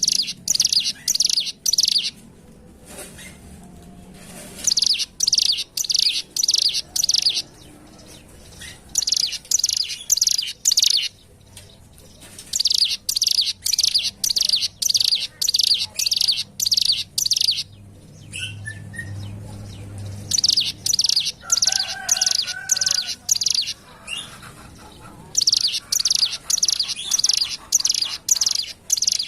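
Ciblek gunung, a prinia, singing: phrases of fast, high-pitched repeated notes, each lasting a few seconds, with short pauses between them. A fainter, lower call sounds briefly about two-thirds of the way through.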